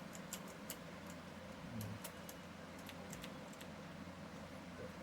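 Light, irregular clicks of keys being pressed on a Livetech computer keyboard, as in typing to check the keys. The clicks are thickest in the first second, then come scattered, over a faint steady hum.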